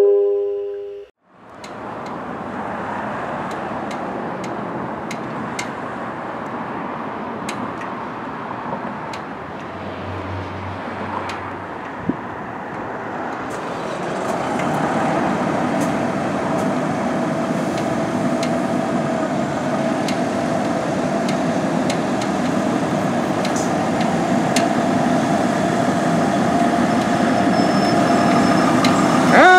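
After a brief descending chime in the first second, a fire engine's diesel runs steadily as the truck idles in the station bay. About halfway through it gets louder and takes on a steady droning note as the engine pulls forward out of the bay.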